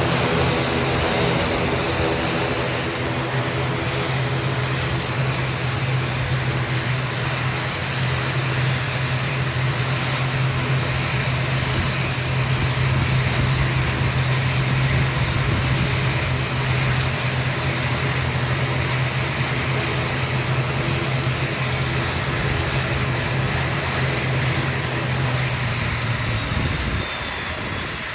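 ATR 42-600 turboprop airliner running on the ground, a loud steady propeller drone with a broad rushing haze over it. Near the end the low propeller drone winds down and drops away, leaving a quieter engine hum.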